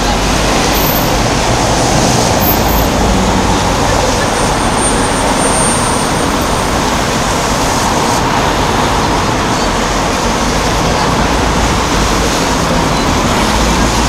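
Steady road traffic noise, with cars and other vehicles passing along the street.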